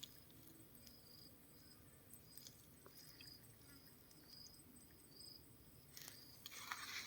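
Near silence with faint insects chirping: short, high chirps, about one a second. A soft hiss rises near the end.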